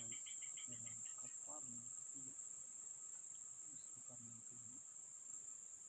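Insects droning steadily at a high pitch, with a rapid chirping call of about five pulses a second that fades out about a second in.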